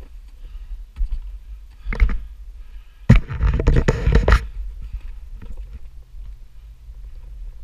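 OneWheel XR+ rolling over a gravel-and-dirt trail: a low rumble with a couple of knocks, then a loud rattling burst about three seconds in that lasts just over a second.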